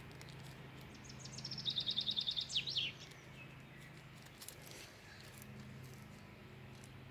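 A songbird singing a rapid trill of repeated high notes, about ten a second, lasting about two seconds and ending in a couple of quick downward notes. A faint steady low hum runs underneath.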